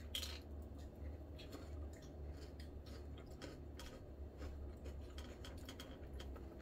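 Close-up eating sounds: chewing, with scattered soft clicks and taps as a fork works at the plate, over a low steady hum.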